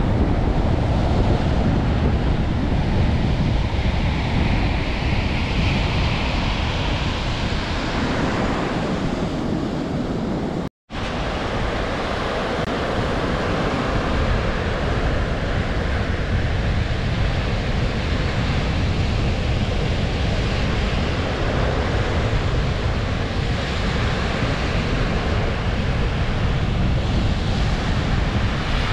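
Strong storm wind buffeting the microphone over Baltic Sea surf breaking on the shore, a steady roar of noise. It cuts out completely for a split second about eleven seconds in, then resumes.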